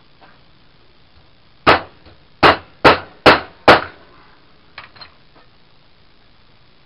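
Hammer driving a homemade hole punch through moped tire tread into a wooden block: five sharp strikes about two a second, then a couple of light taps about a second later.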